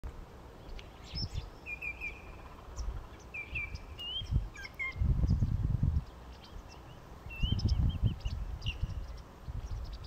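Common greenshank calls: short clear whistled notes in runs of two or three, some rising, heard three times. Bursts of low rumble, louder than the calls, come about halfway through and again near eight seconds.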